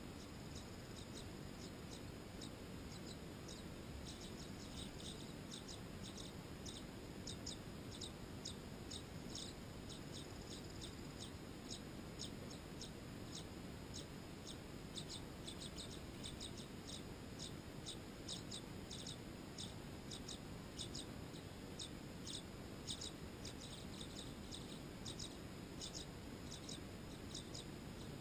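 Tree swallows chirping: a steady stream of short, high chirps, two or three a second, over a faint low background hum.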